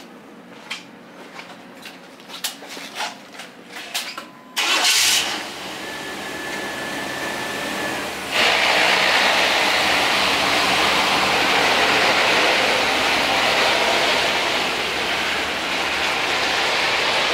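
A few light clicks, then the truck's fuel-injected V8 cranks and fires about four and a half seconds in and settles into a steady idle. A high steady tone sounds for about two seconds just after the start. At about eight seconds the running sound grows louder and stays steady.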